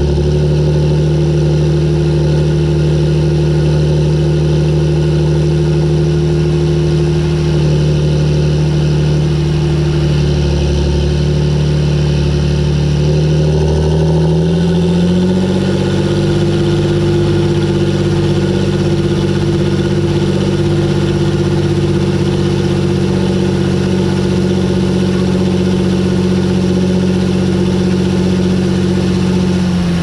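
John Deere 8330 tractor's six-cylinder diesel engine running steadily as the tractor drives across a field. About halfway through its pitch rises to higher revs and holds, then falls back right at the end.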